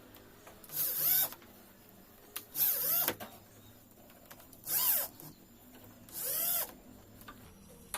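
Power drill run in four short bursts, its motor whine rising and falling in pitch each time it speeds up and slows down.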